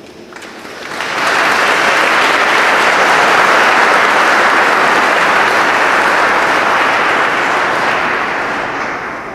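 Audience applauding, swelling in about a second in, holding steady, then tapering off near the end.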